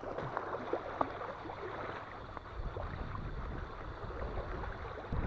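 Choppy wind-driven waves lapping and splashing at the water's edge, a steady wash broken by many small splashes.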